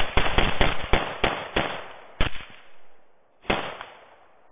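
Rifle shots fired in rapid succession at a group of feral hogs, about five a second for the first second and a half, then slowing to single shots about two seconds in, three and a half seconds in and again at the very end.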